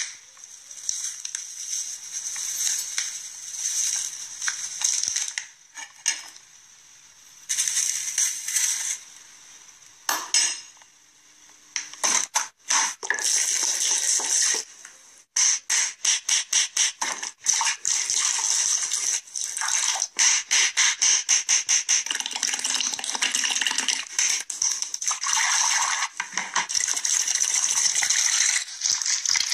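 Hands mashing and stirring wet food in a glass bowl: sloshing and clinking in irregular bursts, with a fast run of short strokes around the middle.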